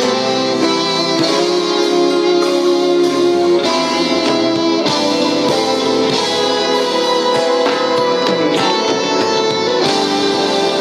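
Instrumental music with a guitar prominent, its chords changing every second or two at a steady level.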